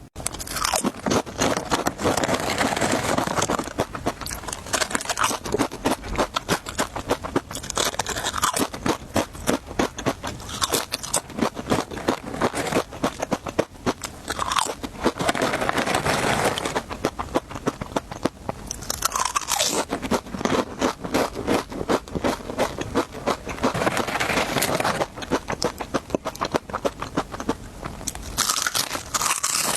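Close-miked crunchy eating: a person biting into and chewing crisp snacks, with dense sharp crackles and crunches throughout.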